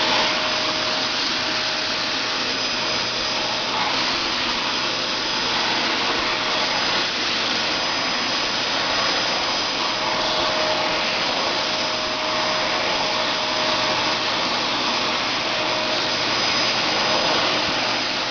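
Dyson Ball vacuum cleaner running steadily, its motor making an even rush with a steady whine that comes and goes as the nozzle is worked over a cat's fur.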